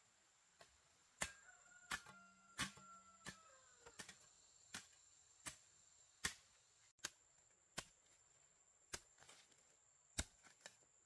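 Wood being chopped with a blade: about a dozen sharp, irregular strokes, roughly one a second.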